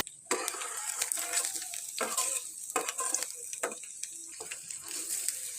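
Minced garlic sizzling in a little hot cooking oil in a pan, with a utensil scraping and knocking against the pan at irregular moments as it is stirred.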